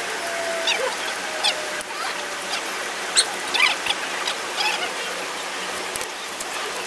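Hand milking: jets of milk squirting steadily into a pail, with many short high-pitched squeaks or chirps scattered through.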